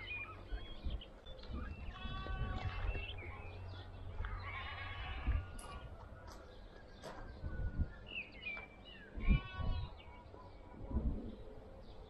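A budgerigar calling in short chattering bursts every couple of seconds, with a few dull low thumps later on.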